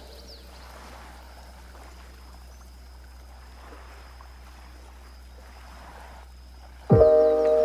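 Sea waves washing softly and faintly. Loud chiming music comes in suddenly near the end.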